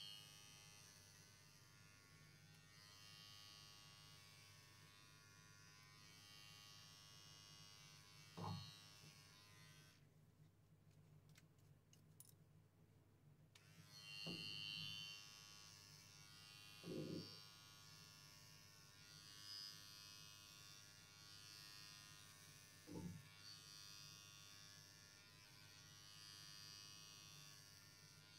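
Electric pet hair clippers buzzing faintly and steadily while trimming a Persian cat's coat. The buzz stops for a few seconds about ten seconds in and then starts again, with a few soft thumps of handling.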